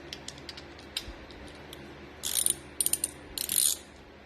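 Ratchet wrench clicking through three short strokes about two seconds in, after a few light clicks, as it snugs the steering wheel nut down without fully tightening it.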